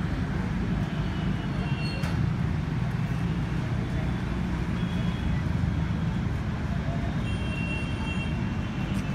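Steady low rumble of road traffic, heard as background inside a roadside shop.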